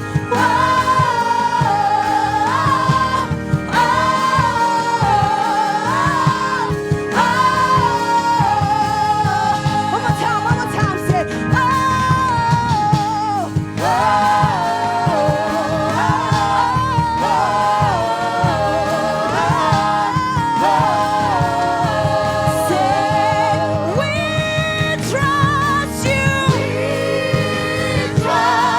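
Gospel song: singers carry a wavering melody over a steady band accompaniment with a beat.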